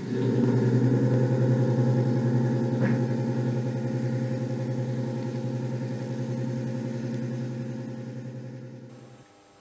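Steady electric hum from a Märklin HO model railway, a low buzz with a fast flutter that starts abruptly and fades out near the end.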